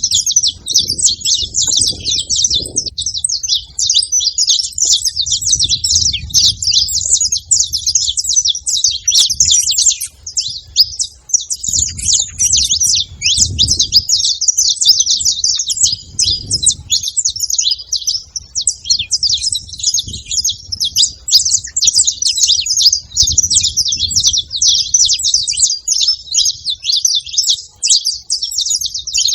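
Several saffron finches chirping and twittering continuously in a dense, rapid, overlapping chatter. Low rumbles come and go underneath.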